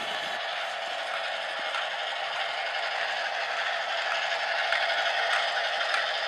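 Lego Duplo battery-powered toy train running along plastic Duplo track: a steady whir of its small motor and gears with a light plastic rattle of wheels on the rails.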